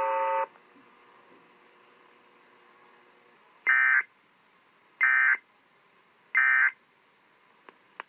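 Emergency Alert System SAME end-of-message code: three identical short warbling data bursts, each about a third of a second, about 1.3 s apart, marking the end of the alert. A steady buzzy tone cuts off about half a second before them.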